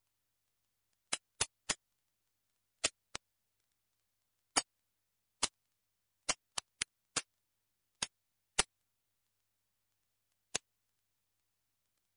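About fourteen sharp, short clicks at uneven intervals, some in quick runs of two or three, with dead silence between them.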